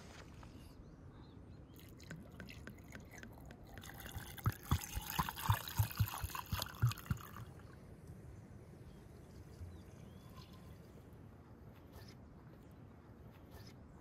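Liquid poured into a small clay piti pot for about three seconds around the middle, with a trickling hiss and several dull knocks against the pot.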